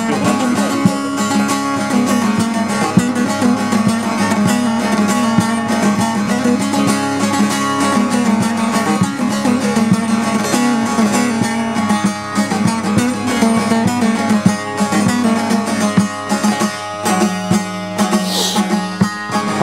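Bağlama (long-necked Turkish saz) played solo: quick plucked notes over a steady drone, the instrumental interlude of a Turkish folk song.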